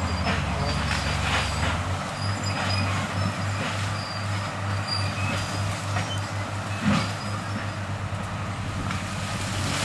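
Heavy machinery running steadily under load while dragging a correntão, a heavy chain, through cerrado scrub to knock down the trees. Scattered sharp cracks of breaking wood come through, the loudest about seven seconds in.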